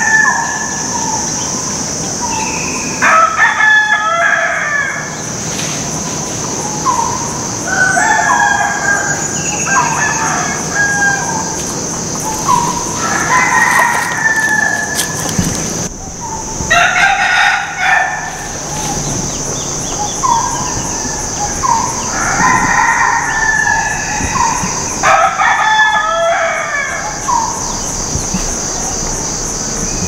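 A rooster crowing three times, each crow lasting about two seconds, with shorter bird calls in between over a steady high-pitched drone.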